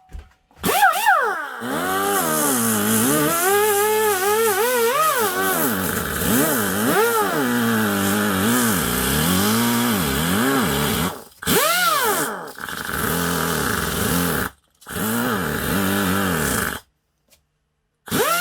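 Electric power tool working a small piece of sheet metal, its motor pitch dipping and rising as it is loaded and eased off. It stops briefly several times and starts up again near the end.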